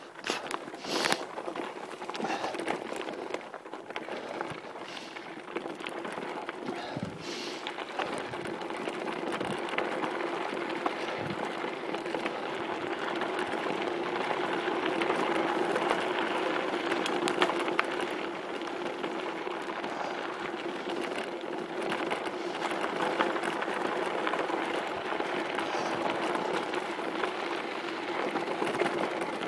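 Mountain bike descending rocky dirt singletrack: a steady crunch and rattle of tyres over loose stones, with frequent clicks and a few harder knocks from the bike. It is muffled by fabric rubbing on a phone microphone tucked into the rider's jersey.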